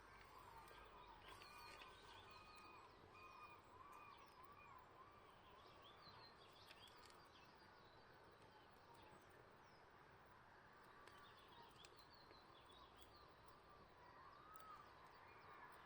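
Faint birdsong: one bird repeats a run of short arched whistled notes near the start and again near the end, with scattered small chirps from other birds.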